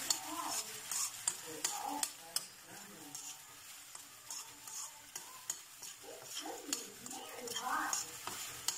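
Metal spatula scraping and clinking against an aluminium wok as jungle snails are stirred, with irregular knocks over a light sizzle of frying in oil.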